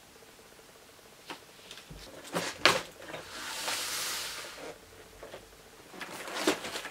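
Handling noises from a clear plastic tub of candy packets and a cardboard gingerbread kit box on a wooden table: a few knocks, a rustling hiss lasting about a second and a half in the middle, then more knocks near the end.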